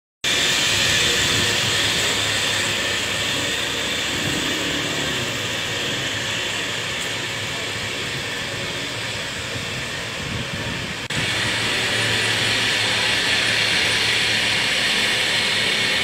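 Truck-mounted hose spraying: a steady hiss of the spray jet over the low, steady running of the truck's engine and pump. The sound breaks off and comes back louder about eleven seconds in.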